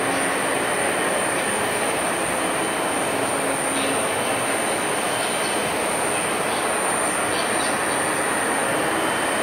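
Neway NW AR5 75 automatic right-angle milling head on a CNC milling machine, side-milling a metal workpiece: a steady, even cutting noise with a constant high whine.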